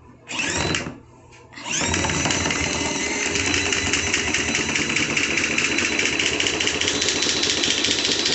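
Mini portable washing machine's spin cycle: two brief starts of the motor, then from about two seconds in a steady whirring with a fast, even rattle. The machine wiggles on its suction cups as it spins, too unsteady to get a good spin.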